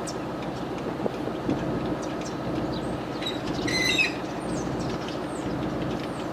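Truck towing a trailer down the road: a steady rumble with a constant light rattle and clatter, and a brief high squeak about four seconds in.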